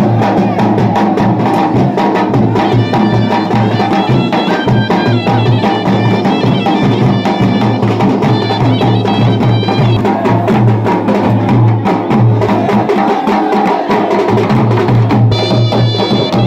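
Traditional Pahari wedding procession band music: drums beat a steady rhythm throughout. A high melody line plays over the drums from about three seconds in, drops out, and comes back near the end.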